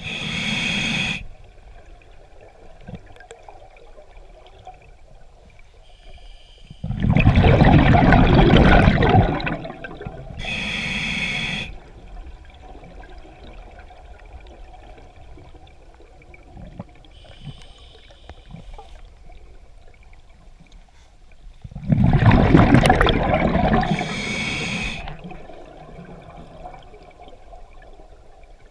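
Scuba diver breathing through an open-circuit regulator underwater: short hissing inhales through the regulator, and twice a loud rush of exhaled bubbles lasting a couple of seconds, with long quiet gaps between breaths.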